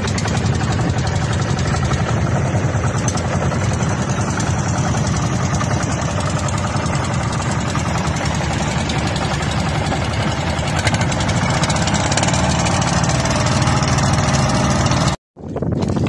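The two small engines of an outrigger bangka boat running steadily under way. The sound cuts off abruptly for a moment near the end.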